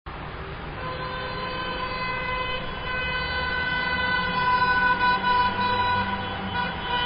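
A steady, pitched vehicle warning tone sounding over a low engine rumble. It cuts in suddenly and grows a little louder partway through.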